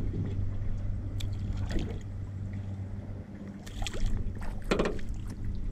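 Boat motor running with a steady low hum, and water splashing about four to five seconds in as a released catfish drops back into the lake.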